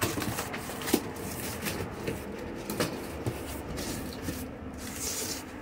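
Cardboard box flaps being pulled open and the packed contents handled: rustling and scraping of cardboard, with a couple of small knocks.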